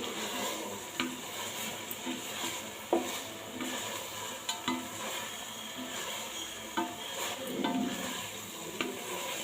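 Food frying in a metal pot while it is stirred with a metal spoon: a steady sizzle, with scraping and sharp clinks of the spoon against the pot every second or two.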